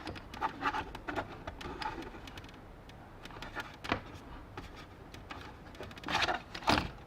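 Plastic keyboard case being handled and pried at while working a stuck trackball section loose: scattered small clicks and knocks, a sharper click about four seconds in, and a louder clatter of plastic about six seconds in.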